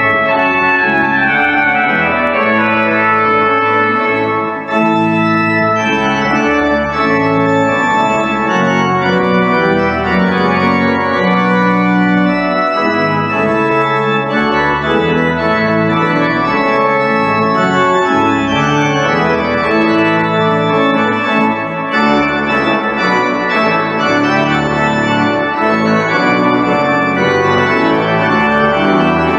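Pipe organ playing full, sustained chords that change every second or so over held bass notes.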